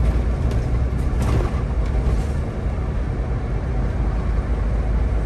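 Solaris Urbino 18 articulated city bus heard from inside at the driver's seat: a steady low engine and running rumble, with a few light clicks or rattles about a second in.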